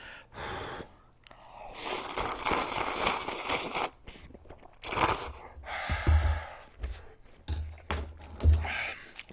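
A person slurping a mouthful of spicy jjamppong instant noodles close to the microphone, with one long slurp about two seconds in and a shorter one around five seconds, then chewing with soft low mouth sounds.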